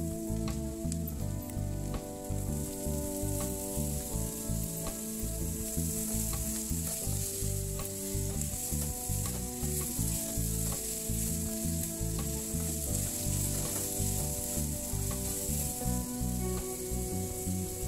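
Chopped onion and diced carrots sizzling in oil in a nonstick frying pan, stirred with a plastic spatula that scrapes and taps against the pan.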